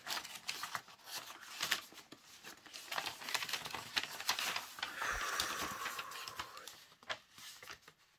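Folded sheets of printer paper being unfolded and handled, rustling and crackling in many short crinkles, with a longer, steadier rustle about five seconds in.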